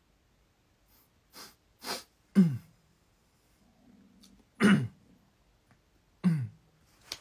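A young man's voice making a few short breathy sounds without words, five spread over several seconds, the three louder ones dropping in pitch.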